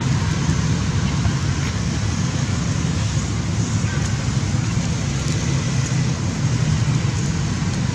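Steady rumbling noise with a hiss above it, even and unbroken throughout.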